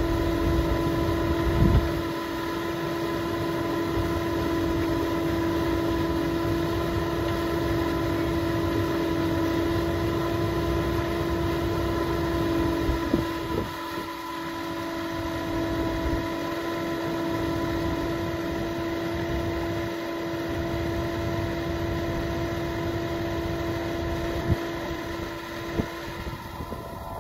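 Excavator running steadily, a constant whine over the rumble of the engine, with a few brief knocks.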